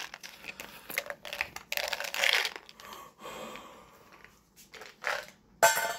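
Hands working a plastic supplement bottle and its cap, making irregular rustling, crinkling and clicking handling noises. A short, louder breathy vocal sound comes near the end.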